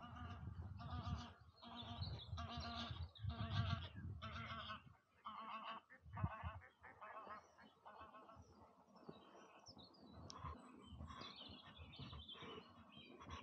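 Geese honking, a run of repeated calls about one a second for the first eight seconds or so, then fainter, higher chirps of smaller birds.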